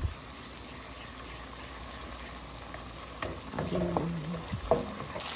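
Butter, minced garlic and ketchup sizzling steadily in a nonstick pan while a spatula stirs and scrapes through it, with a single knock right at the start.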